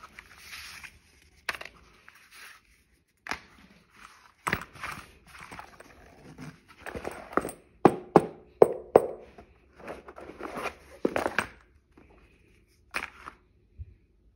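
Handling noise from a fabric-covered hard-shell headphone case and its contents: irregular knocks, taps and rustles, with a run of sharp clicks about eight seconds in.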